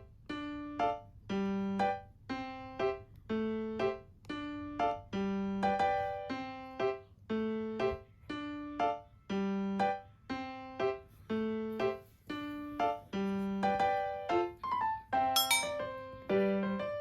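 Background music on a piano-like keyboard: a light, evenly paced tune of separate, ringing notes over a low note about once a second.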